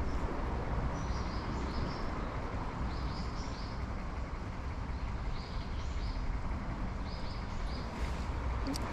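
Small birds chirping in four short clusters of quick high notes, about two seconds apart, over a steady rumble of wind on the microphone.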